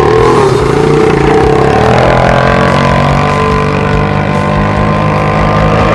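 Small 125cc single-cylinder go-kart engine running as the kart truck drives along, its pitch dipping briefly just after the start and then holding fairly steady.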